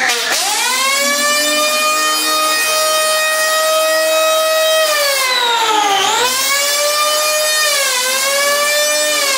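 Accurate electric power planer cutting a foam surfboard blank: a loud, high-speed whine that sags in pitch and climbs back several times as the cutter works across the foam.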